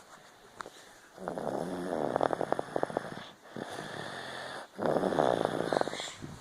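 A sleeping person snoring through the nose: two loud, rattling snores, the first starting about a second in and the second about five seconds in, with a quieter breath between them.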